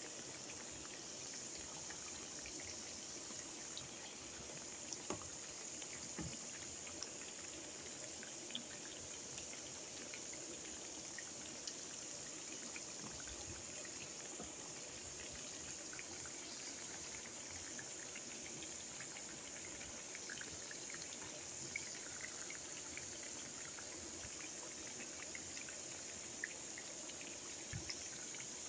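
Breaded chicken nuggets deep-frying in hot oil: a steady sizzle with scattered small pops and crackles.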